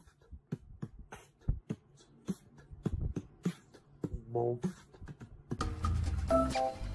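A run of quick, irregular sharp clicks and knocks, with two short pitched sounds among them. About five and a half seconds in, background music with a steady beat and plain melodic notes starts.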